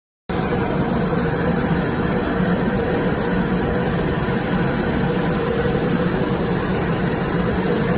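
Jet aircraft engine running steadily: a constant loud rush with a thin high whine held on one pitch.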